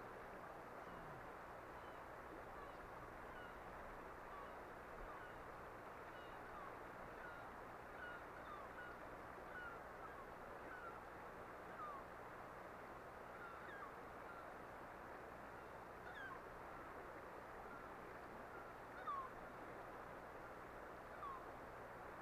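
Faint steady rush of flowing river water, with frequent short, falling bird chirps scattered over it.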